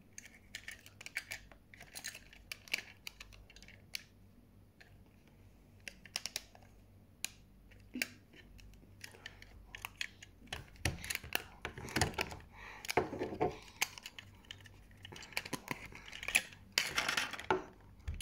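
Toy cars and their plastic and cardboard packaging being handled: scattered clicks, taps and rustles, getting busier and louder about halfway through.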